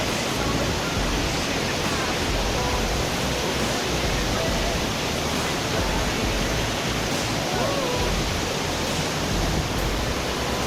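Waterfall: a steady, even rush of falling water, with faint voices in the background.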